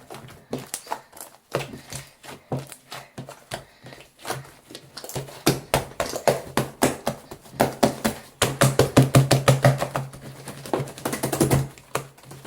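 Hands kneading and squishing slime mixed with shaving foam, making rapid wet clicks and pops. The clicking grows denser and louder about halfway through.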